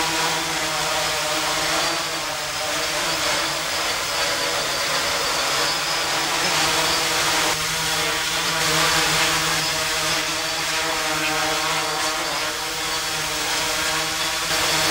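Quadrotor's electric motors and propellers whirring steadily as it hovers and manoeuvres, a buzzing hum whose pitch shifts slightly now and then as the thrust changes.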